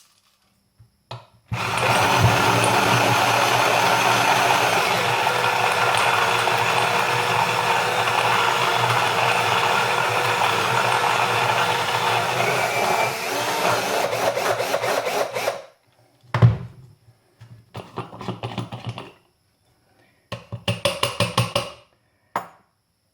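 Electric drill turning a manual ceramic burr coffee grinder, running steadily for about fourteen seconds, then slowing and stopping. A knock follows, then two shorter bursts of drill-driven grinding.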